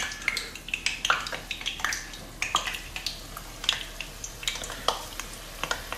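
Flour-battered chicken pieces frying in hot oil in a pan, the oil sizzling with irregular sharp crackles as pieces are added one at a time.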